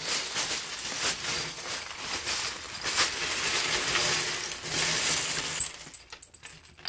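Several hundred plastic Lego pieces pouring out of a zip-lock bag onto a wooden tabletop in a continuous clatter. Near the end the clatter stops, leaving a few scattered clicks as the pieces are spread by hand.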